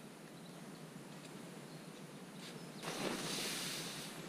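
Faint bird chirps over a low outdoor hiss; about three seconds in, a loud rustling noise lasts for about a second.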